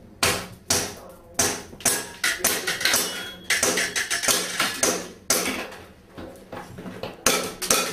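Airsoft pistol firing a rapid, irregular string of shots, with BBs striking the small metal plate targets and knocking them down: a quick run of sharp pops, taps and clanks.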